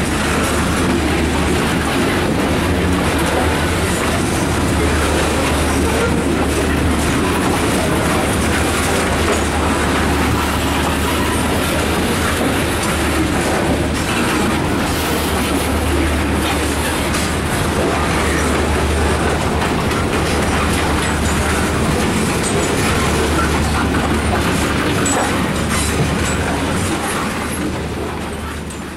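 Freight train of coal gondola cars rolling past at close range: a loud, steady rumble of steel wheels on the rails, with clickety-clack over the rail joints. It fades out near the end.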